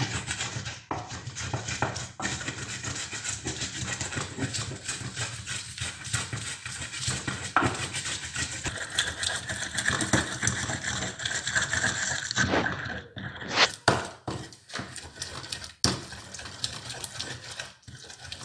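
A hand mixing and kneading a wet mash of ripe plantain and ground spices in a pan: continuous rapid, irregular squishing and rubbing strokes, with a few sharper knocks against the pan near the end.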